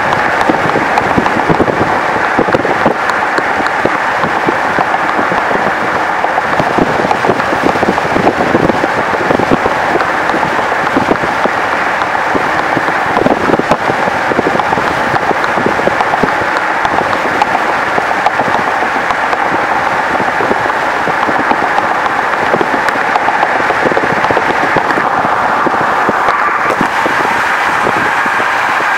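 Steady rushing road and wind noise of a moving car, with a crackling texture from wind buffeting the microphone.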